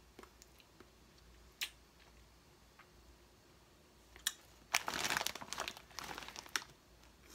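Foil-lined potato chip bag crinkling and crackling for about two seconds in the second half as it is handled, after a few isolated sharp clicks.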